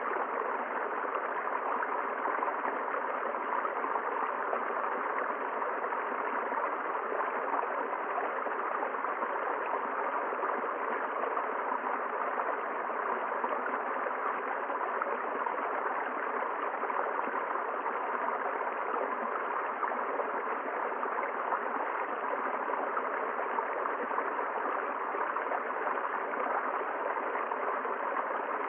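River water flowing over rocks, a steady rush and gurgle.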